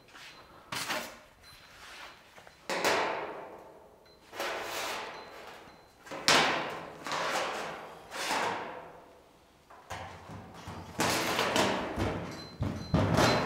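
Steel rule being set down and slid across a bare steel car bonnet panel, a series of scraping strokes every second or two, each starting sharply and fading, as the panel is checked for high and low spots.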